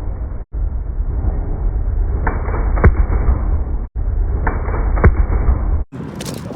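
Train rolling over the track right by the camera: a heavy low rumble with a few sharp clacks, in clips that cut off abruptly twice.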